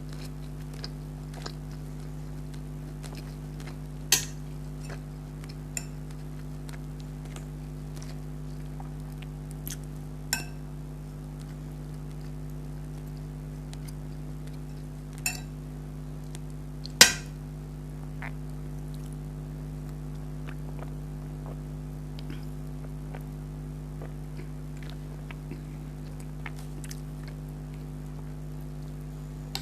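Mukbang eating sounds: faint chewing and small ticks, with about five sharp clinks of a spoon on a plate or bowl, the loudest a little past halfway. A steady low hum lies underneath.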